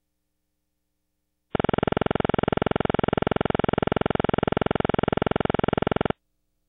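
A loud electronic buzzing tone, pulsing very fast at an even pitch, starts about a second and a half in and cuts off abruptly after about four and a half seconds.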